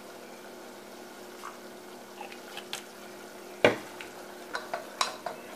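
Wooden spoon stirring a butter-and-seasoning sauce in a metal saucepan, with a few sharp knocks of the spoon against the pot, the loudest about three and a half seconds in. The sauce sizzles faintly under a steady low hum.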